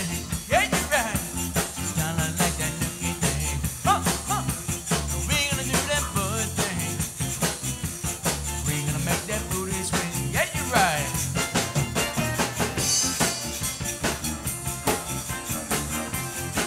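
Live zydeco band playing a mostly instrumental passage: button accordion over electric guitar and drum kit with a steady beat, broken by a few short gliding vocal cries.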